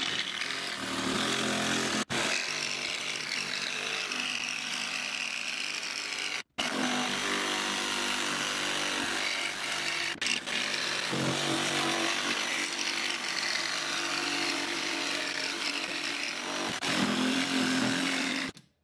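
DeWalt XR cordless jigsaw running steadily as its blade cuts a curve through particleboard. The sound breaks off for a moment about six and a half seconds in and stops just before the end.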